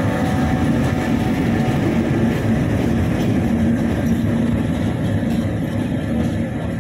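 Bangladesh Railway diesel locomotive 6501 running light past the platform, its engine giving a loud, steady drone with a low hum that eases off slightly near the end as it pulls away.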